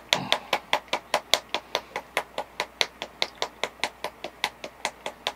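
A small bottle of antique bronze airbrush paint being shaken to mix it, clacking sharply in an even rhythm of about five knocks a second.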